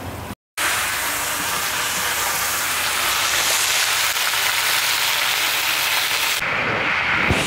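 Leafy greens sizzling in a hot wok, a loud steady hiss of frying that starts after a brief dropout about half a second in. Near the end the hiss thins for about a second.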